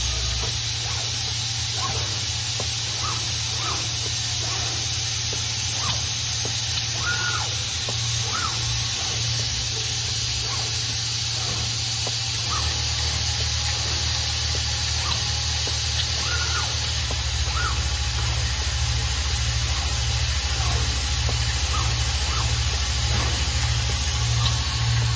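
Automatic odd-form component insertion machine running: a steady hiss with short high whines at irregular intervals, over a low pulsing hum.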